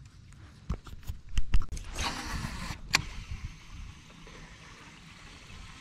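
A baitcasting rod and reel being cast. A few knocks and thumps of handling come first. About two seconds in, the spool whirs for under a second as line pays out, then a sharp click cuts it off. A faint steady hiss follows.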